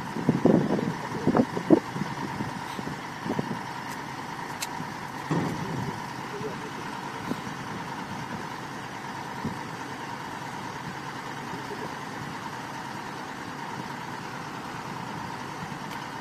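Excavator diesel engine idling steadily, a constant hum, with brief indistinct voices in the first two seconds and again about five seconds in.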